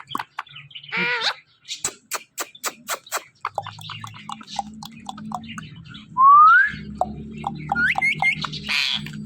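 Indian ringneck parrot whistling and chirping: a quick series of sharp clicks about two seconds in, short chirps, a rising whistle about six seconds in, then more rising whistles and a harsh call near the end. A low steady hum runs under the second half.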